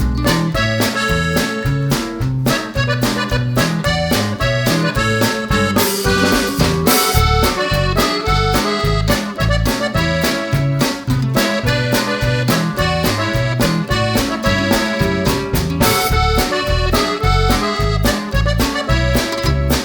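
Background music with a fast, steady beat, a moving bass line and a bright melody on top.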